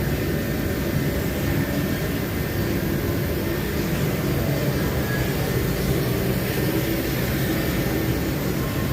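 A steady low rumble with a hiss above it that does not change, like a running motor or air blowing.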